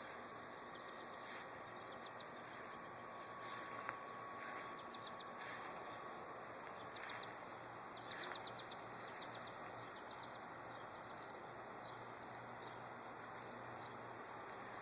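Faint short high chirps from a small bird, some in quick runs of several notes and a few single falling notes, over steady outdoor background hiss.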